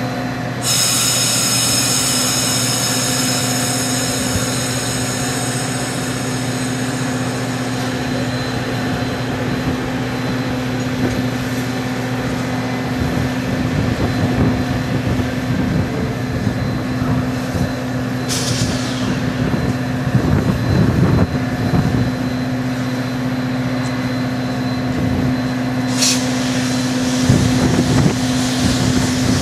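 Metra bilevel commuter train standing at the platform with a steady low engine hum. About a second in, a loud hiss of brake air starts and fades over several seconds, and two more sudden air hisses start later on.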